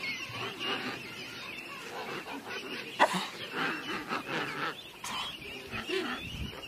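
Penguin colony: many birds honking and braying at once in an overlapping din, with one sharper, louder call about three seconds in.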